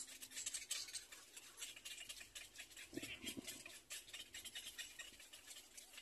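Little black cormorant chicks at the nest: faint, rapid, scratchy ticking with a couple of short low calls about three seconds in.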